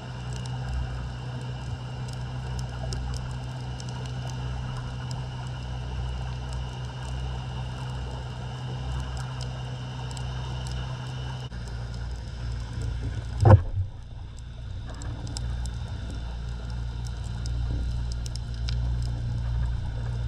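Underwater sound picked up by a camera in a waterproof housing: a steady low rumble with scattered faint clicks, and one sharp knock about thirteen seconds in.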